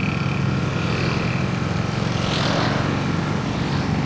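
A vehicle engine running steadily at an even speed, with a brief hiss swelling and fading about halfway through.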